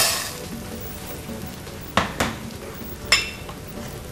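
Kitchenware being handled on a counter: four sharp clinks and knocks, the first the loudest, the last ringing like glass or metal. A steady sizzle of frying runs underneath.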